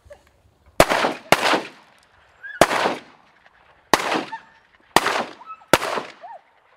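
A volley of six shotgun shots aimed at ducks. Two come close together about a second in, then four more about a second apart, each with a fading echo. Faint waterfowl calls sound between the shots.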